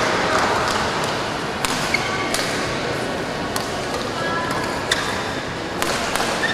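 Badminton rally: rackets striking the shuttlecock about once every second and a quarter, with short squeaks of players' shoes on the court over background crowd noise.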